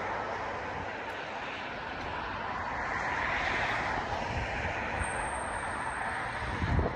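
Steady rushing engine noise that swells a little in the middle, with one thump near the end.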